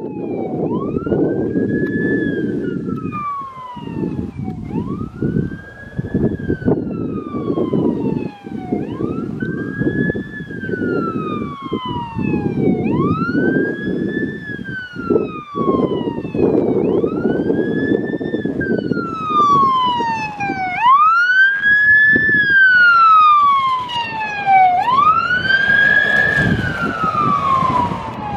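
Wailing siren on the '00' course car, a Maxus T50, that runs the rally stage ahead of the competitors, warning spectators. Each wail rises quickly and falls slowly, repeating about every four seconds. A steady rumble from the car runs underneath, and both grow louder in the last few seconds as it draws near.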